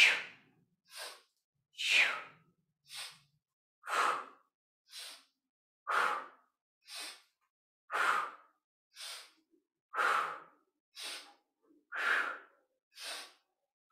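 A woman breathing hard and rhythmically under exertion, with a breath about every second. Stronger breaths every two seconds alternate with softer ones.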